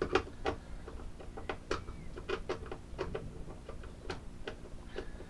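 Screwdriver turning out the small screws of a temperature controller's casing: a run of irregular light clicks and ticks, a few a second.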